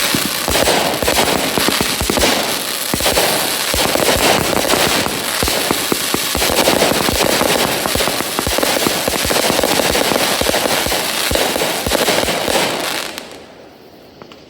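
A case of four Brothers Atom Bomb 36-shot 500-gram firework cakes firing together: a dense barrage of launch thumps and shell breaks overhead with continuous crackling. The barrage stops about thirteen seconds in.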